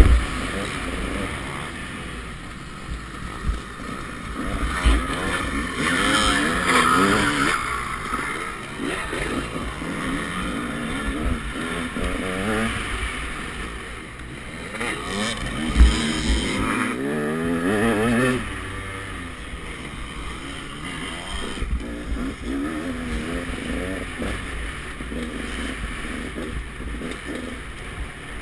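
KTM 200 XC-W single-cylinder two-stroke dirt bike engine revving up and down under race throttle, its pitch rising and falling in repeated surges, loudest about a quarter of the way in and again past the middle. A couple of sharp thumps, one at the start and one about halfway.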